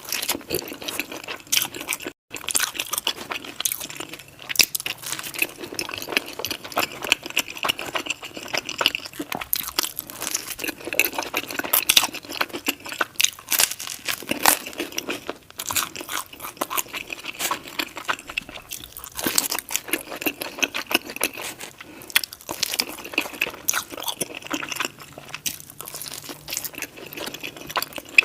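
Close-miked eating of pizza: a steady run of crunchy bites and chewing of crust and cheese, with many irregular sharp crunches. The sound breaks off for a moment about two seconds in.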